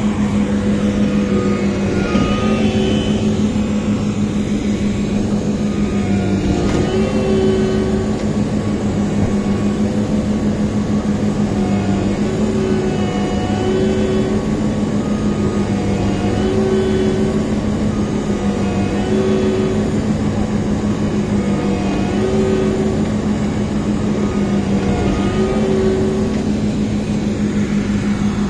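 Large diesel farm machinery engine running hard and steadily, with a pitched whine that comes and goes every second or two.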